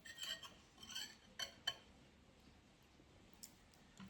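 Spoon or other cutlery lightly clinking against a dish, a few faint clinks with a short ring in the first two seconds.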